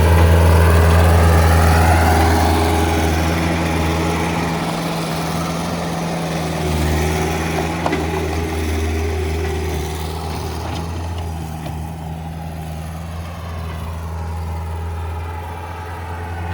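Bobcat T190 compact track loader's diesel engine running steadily while the machine works, its note gradually getting quieter.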